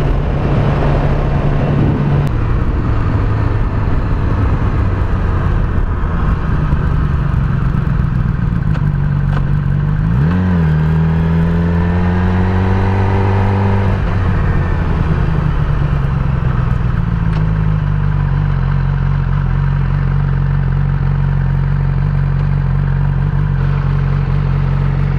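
Yamaha R6 inline-four sport-bike engine running smoothly on the road. About ten seconds in its pitch rises sharply and keeps climbing for a few seconds, then it drops back and holds steady and low. After new ignition coils and a new timing chain, it no longer misfires or jerks.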